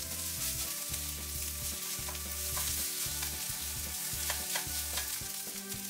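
Rice and egg sizzling in oil in a non-stick Teflon frying pan, stirred and pressed with a slotted turner and a wooden spatula. The tools make repeated scraping strokes against the pan under a steady frying hiss.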